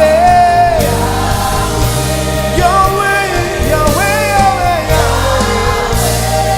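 Live gospel worship music: a band holding steady bass notes under a singing voice whose melody slides between notes.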